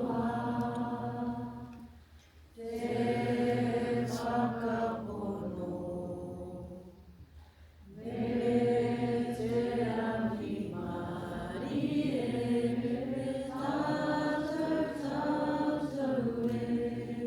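A group of voices singing a Māori waiata together without instruments, in long held phrases with two short breaks for breath, about two seconds in and again about seven seconds in.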